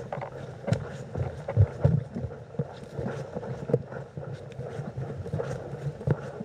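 A person running: irregular thudding footfalls, first on a wooden footbridge and then through long grass, with wind buffeting the microphone.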